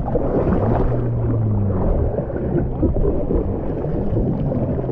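Seawater sloshing and splashing against a jet ski's hull as a rider hauls themselves back aboard from the water, with a low wavering hum underneath.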